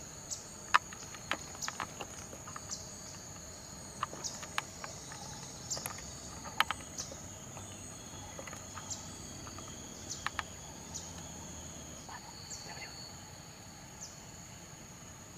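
Insects calling steadily at a high pitch, a continuous outdoor insect chorus, with scattered short clicks throughout.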